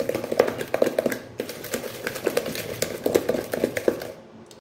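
Eggs being beaten by hand into creamed butter and sugar in a bowl: a quick, rhythmic run of utensil taps and scrapes against the bowl that dies down shortly before the end.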